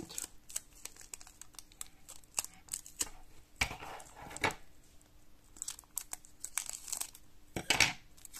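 Clear packing tape crinkling and crackling as it is wound by hand around a bundle of wire, with a few louder crackles scattered through.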